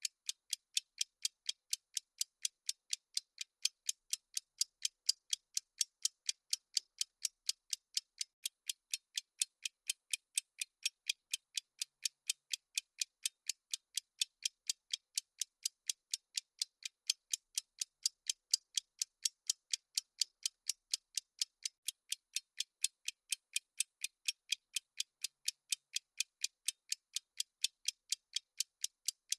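Clock ticking sound effect of a countdown timer: an even, unbroken run of sharp, high-pitched ticks, several a second.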